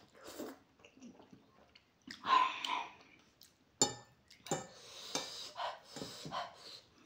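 Close-miked eating of spicy instant ramen: noodles slurped and chewed, with hard breaths from the chilli heat and a loud breathy burst about two seconds in. A sharp clink of metal cutlery on the plate comes near four seconds in.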